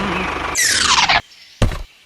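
A loud swoosh that sweeps down in pitch about half a second in, as the steady running noise before it cuts off. A short low thud follows near the end.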